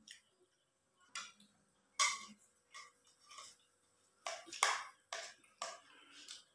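Metal spoons clinking and scraping against ceramic plates as people eat rice and soup, in about ten short, irregular clinks.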